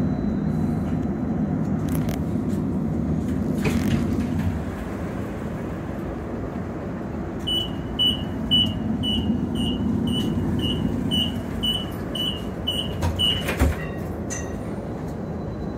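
Inekon 121 Trio streetcar rumbling as it rolls and slows to a stop. About halfway through a door warning starts beeping, about two beeps a second for some six seconds, and ends in a sharp knock as the door opens.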